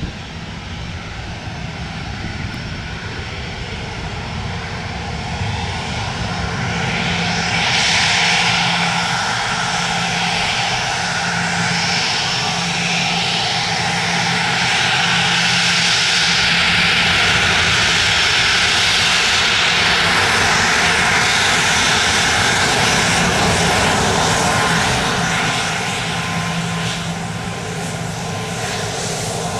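Gulfstream business jet taxiing past on its two rear-mounted jet engines: a steady whine and rushing hiss over a low hum. It grows louder about six seconds in, holds while the jet is closest, and eases off near the end.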